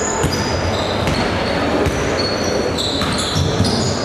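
Basketball play on a hardwood court in a large hall: sneakers squeak in many short, high chirps, a ball bounces, and there is a steady background of crowd chatter.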